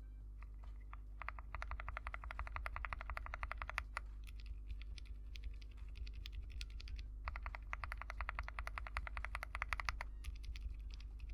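Mechanical keyboard switches being typed on: two long runs of rapid keystrokes, about a dozen a second, with scattered single presses between and after.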